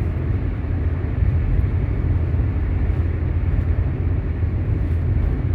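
Steady low rumble of tyre and engine noise heard inside a moving car's cabin.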